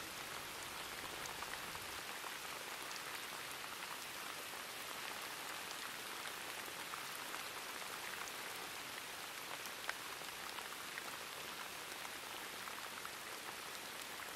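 Steady rain: an even hiss with scattered faint drop ticks, and a slightly louder tick about ten seconds in.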